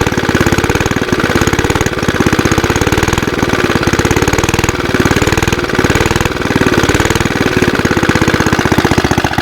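Small Suffolk engine, freshly rebuilt with newly lapped valves, running with a rapid even firing beat, its speed dipping and picking up again several times as it frees up.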